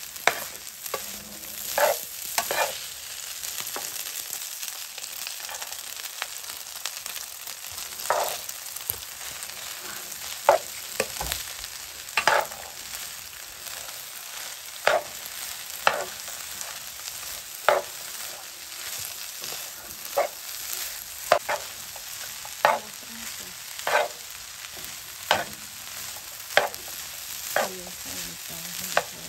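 Fried rice sizzling in a nonstick frying pan while a metal spatula scrapes and knocks against the pan in repeated strokes, about one every second or two, over a steady hiss.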